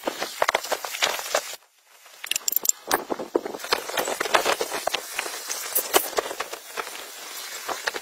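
Irregular metallic clicks and clinks of a wrench and loose rocker-arm parts being worked on a two-cylinder diesel engine's cylinder head, with a short break about a second and a half in.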